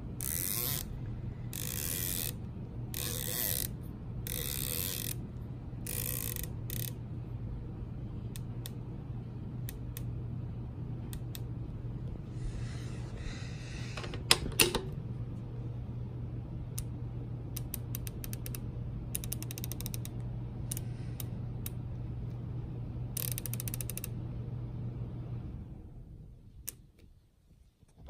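Steiner M7Xi riflescope turrets being turned by hand: runs of crisp detent clicks, with quick spins and single clicks, and one louder knock about halfway through. A low steady hum runs underneath and stops near the end.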